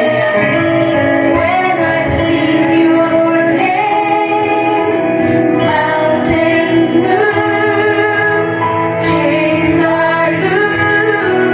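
Worship song playing: a woman singing long, held melody lines over steady instrumental backing.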